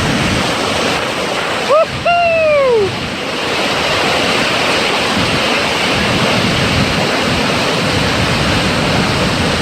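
Floodwater pouring over the Clementine Dam spillway on the American River: a steady, loud rush of falling water. About two seconds in, a short pitched vocal call rises and then falls over the water noise.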